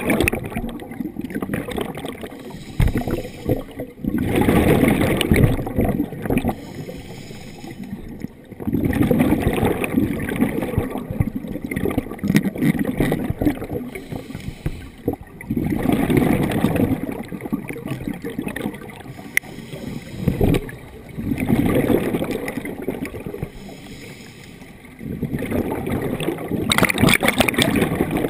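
Scuba diver's regulator underwater: exhaled bubbles gurgle in regular bursts about every five seconds, each lasting a couple of seconds, with quieter stretches between.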